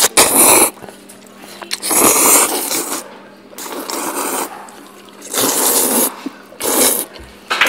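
Loud slurping of jjajangmyeon noodles by several eaters: a series of hissing slurps, each lasting about a second or less, with short pauses between them.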